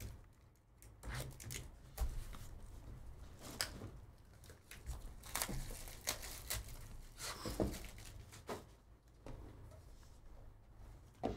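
Hands opening a sealed foil baseball-card box: short bursts of tearing and crinkling wrapper, rustling, and light knocks of cardboard as the box is handled and its lid pulled open.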